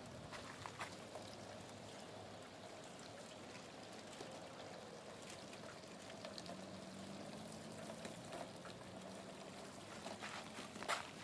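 Storm water running down a house's gutter downspout: a faint, steady rush, with scattered ticks and a couple of sharper clicks near the end.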